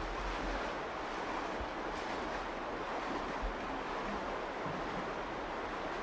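Virgin River water rushing steadily, an even flowing-water noise, with a few faint low bumps like wind on the microphone.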